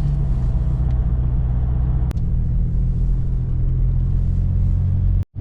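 Toyota FJ Cruiser's 4.0-litre V6 running steadily with road noise while driving, a continuous low rumble. There is a brief break about two seconds in and a short dropout near the end.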